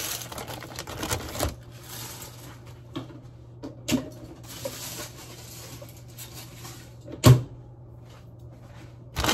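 Aluminium foil and paper rustling as a foil-wrapped sandwich is slipped into a paper sandwich bag, followed by scattered light clicks and knocks of kitchen handling. One sharp knock about seven seconds in is the loudest sound.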